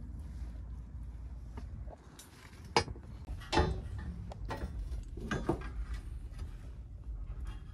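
Metal tools and suspension parts clanking and knocking as hands work on a car's rear suspension: a handful of sharp metallic knocks, the loudest about three and three and a half seconds in, over a steady low rumble.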